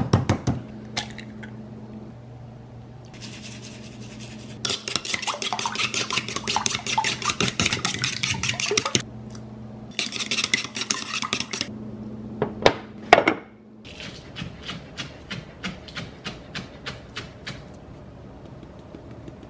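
An egg cracked against a black earthenware bowl, then metal chopsticks beating the eggs in the bowl with fast clinking and scraping in two spells, a few knocks against the bowl, then lighter, slower ticks. A low steady hum lies underneath.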